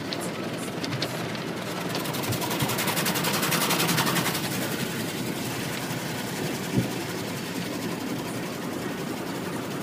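Automatic car wash heard from inside the car's cabin: water spray and wash equipment rushing over the body and windows with a fast rattle, swelling to its loudest around three to four seconds in. A single knock near seven seconds.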